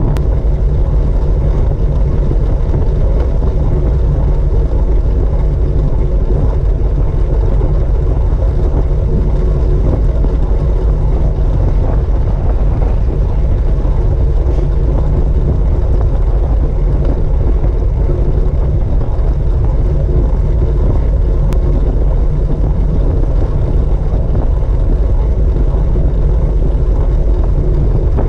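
Steady low rumble of a track bike riding fast on the wooden boards of a velodrome, picked up by a camera mounted on the bike: tyre noise on the timber mixed with wind on the microphone.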